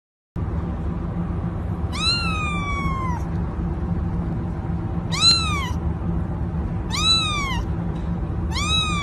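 A ginger kitten meowing four times, high-pitched calls that rise and then fall, the first one longer and trailing off. A steady low background noise runs under them.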